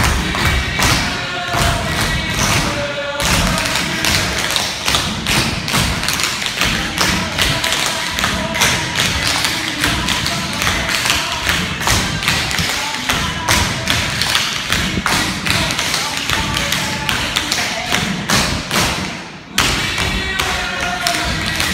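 Tap shoes striking a hardwood floor in quick, dense rhythms of steps and stamps, with music playing underneath. The tapping breaks off briefly near the end, then starts again.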